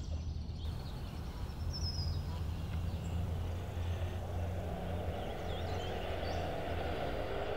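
Steady low vehicle-engine hum under a haze of outdoor noise, with a few faint bird chirps above it; a rushing noise grows in the second half.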